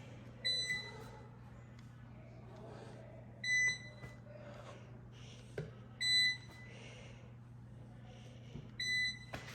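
Four short, high-pitched electronic beeps about three seconds apart from a laundromat dryer's control panel as its buttons are pressed, over the steady low hum of the machines, with a single click about halfway through.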